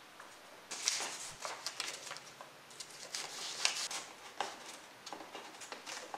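Light clicks, scrapes and paper rustles of hands handling a small wooden box and slipping a strip of paper into the gap of its lid.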